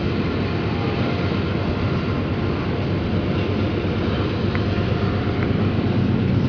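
Steady low rumble of a distant train running along the river far below.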